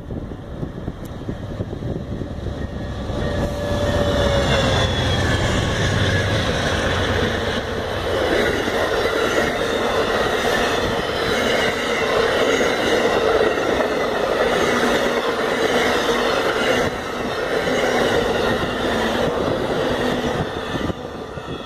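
Amtrak passenger train passing close at speed. The locomotive's deep rumble builds and peaks about four seconds in, then comes a long steady rush of wheels and cars on the rails with a ringing tone from the wheels, easing off near the end as the last cars go by.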